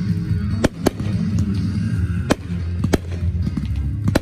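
Aerial firework shells bursting in about five sharp bangs, spaced irregularly, over music with a heavy steady bass.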